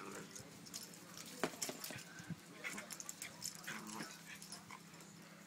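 A West Highland white terrier and a wire-haired fox terrier puppy at play: short whimpers and yips among many quick clicking and scuffling noises.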